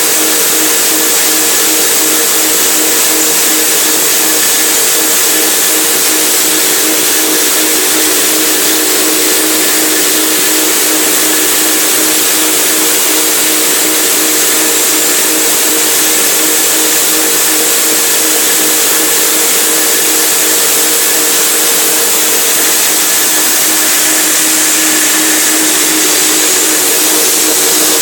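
Electric motor of a forage chopper running at speed: a steady hum over an even rushing noise, unchanging throughout.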